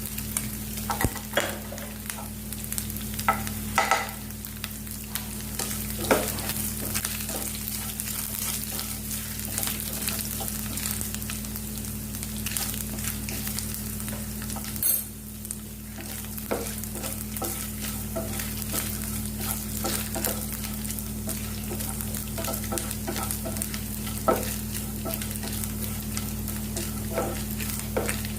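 Small pieces of coconut frying in hot ghee in a frying pan, sizzling and crackling steadily, with a spatula stirring and scraping against the pan now and then.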